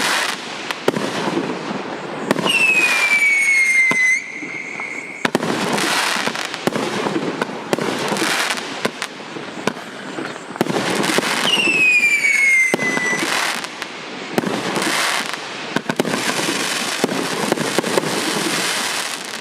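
A 50-shot, 1.2-inch-calibre firework cake (ОТС 5154) firing in a rapid run of launch thumps and crackling bursts. Two whistles fall in pitch, one near the start and one about midway.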